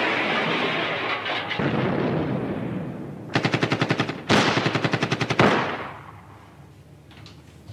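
Rapid automatic gunfire, about ten shots a second, in two bursts of about a second each starting a little over three seconds in. Before it, a loud rushing noise fades away.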